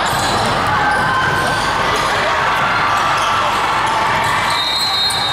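A basketball bouncing on a hardwood gym court over the steady noise of a gym full of players and spectators.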